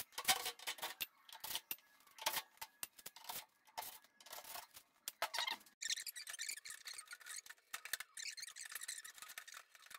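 Scattered clicks, taps and scraping of hands and a screwdriver working the sheet-metal front panel of a Samsung electric dryer loose from its clips. From about six seconds in, the scraping and rustling come thicker and steadier.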